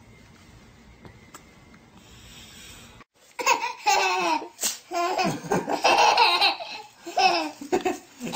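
Baby laughing hard in repeated bursts, starting suddenly about three seconds in after a faint, quiet stretch.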